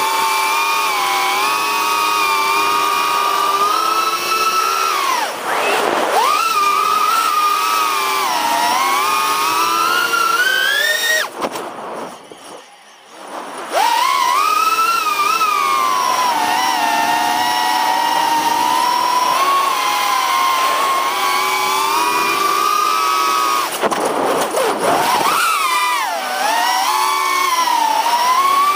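Holybro Kopis Mini FPV quadcopter's brushless motors and propellers whining, the pitch rising and falling continuously with throttle. Near the middle the pitch climbs and then the sound almost cuts out for about two seconds before coming back; it dips briefly again later.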